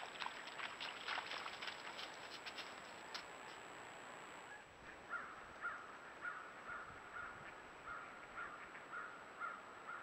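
Short bird chirps for the first few seconds, then a bird calling over and over, about two calls a second, from about five seconds in.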